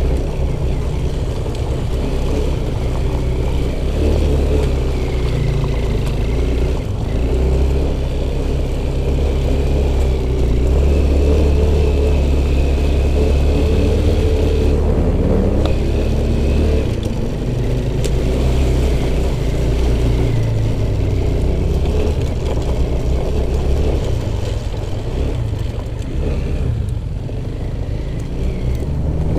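Off-road motorcycle engine running under load, its revs rising and falling as the throttle changes, over a heavy low rumble.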